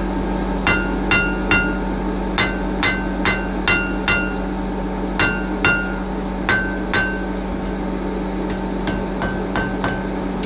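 Hand hammer striking red-hot steel on a blacksmith's anvil: about seventeen blows in short runs of two to five, each with a brief metallic ring. A steady low hum runs underneath.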